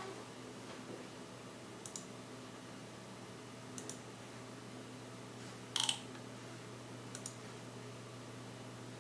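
A few faint, sharp clicks of small watchmaking tools on a watch movement, spaced a second or two apart, the loudest a short rattle of clicks about two-thirds of the way in, over a steady low hum.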